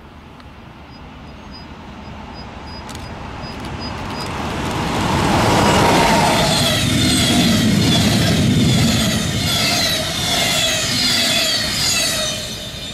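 A train approaching and passing at speed: its rumble swells for about six seconds, the pitch drops as it goes by, and the wheels clatter on as the cars pass, until the sound cuts off suddenly.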